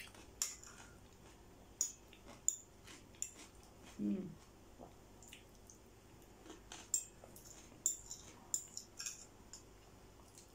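Metal fork tapping and scraping on a ceramic plate while mashed potato is eaten, with soft mouth and chewing sounds in between; a brief hum of the voice about four seconds in.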